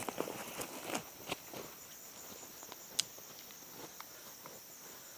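Footsteps crunching on dry leaf litter and twigs as a person walks up and kneels, mostly in the first second and a half, with a sharp click about three seconds in. Insects trill steadily underneath.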